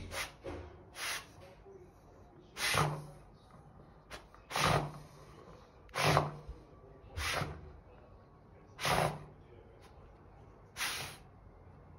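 Miniature schnauzer sniffing hard with its nose pushed into a gap in a wall, taking loud, noisy snuffling breaths every one to two seconds as it scents a mouse hiding in the wall cavity.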